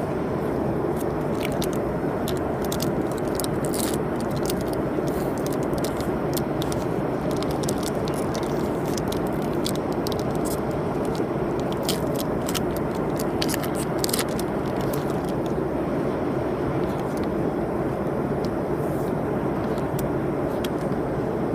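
Steady airliner cabin noise, with crinkling and scraping from a foil trading-card booster pack being opened and its cards handled through roughly the first two-thirds.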